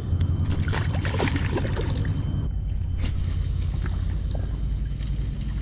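Steady low drone of a towboat's diesel engines as it pushes barges up or down the river. In the first couple of seconds there is splashing as a flathead catfish is slipped back into the water, and about three seconds in there is one sharp click.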